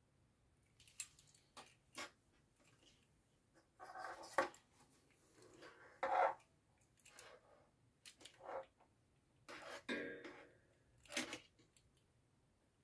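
Clicks and short scraping rustles from a plastic push-button contact block and its wires being handled, at irregular moments, the loudest about six seconds in.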